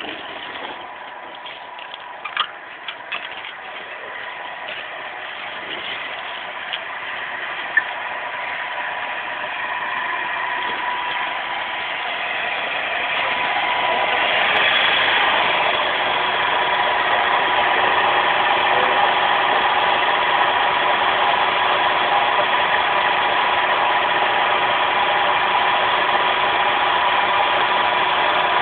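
Hydraulic wire-rope swaging press with its pump motor running, a steady hum with a whine. It grows louder over the first fifteen seconds or so, then holds steady. A few sharp clicks come in the first several seconds.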